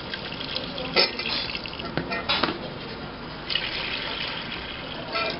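Water poured from a jug into a cooking pot of meat and carrots, splashing onto the stew, with a few sharp clicks along the way.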